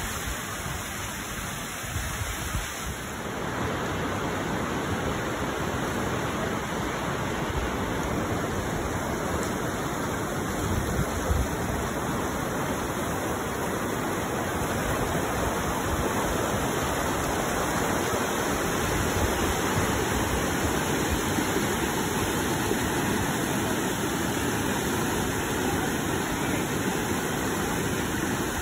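Fast mountain river rushing through whitewater rapids and around boulders in a canyon: a steady, loud rush of water.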